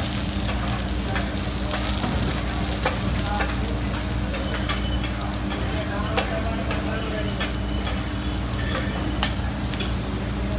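Ghotala dosa filling and butter sizzling on a hot iron griddle, with many short sharp clicks of a metal spatula against it scattered through the sizzle.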